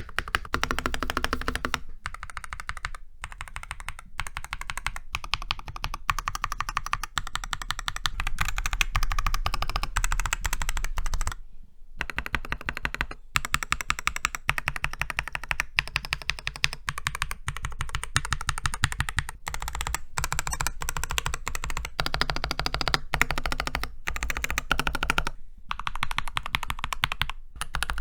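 Continuous fast typing on a Keychron C2 Pro 8K mechanical keyboard fitted with Durock Ice King tactile switches and Hammerworks keycaps: a dense stream of clacky keystrokes, with a brief pause about eleven and a half seconds in.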